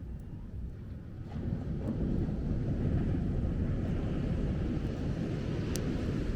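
Wind buffeting the microphone as a low, steady rumble that swells about a second in, with a single sharp click near the end.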